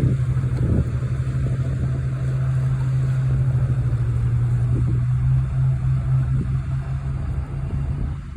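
Steady low engine drone of a ship's machinery: a constant deep hum over rumbling noise, with a few brief low thumps.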